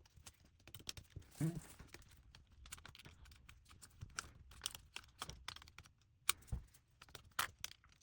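Irregular light clicks and taps of a small precision screwdriver and tiny Phillips screws being worked out of a small connector cover inside an iPad.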